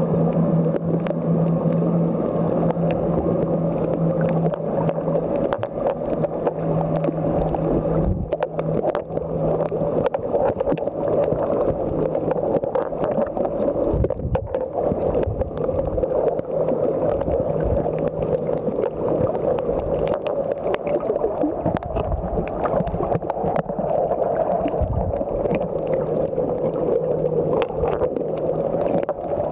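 Underwater sound picked up by a camera in a waterproof housing: a steady muffled rush of water with scattered clicks. A low steady hum sits under it, fading about eight seconds in and returning near the end.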